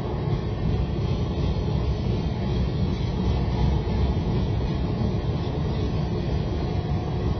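Freight train cars rolling past at steady speed: a continuous low rumble of steel wheels on rail.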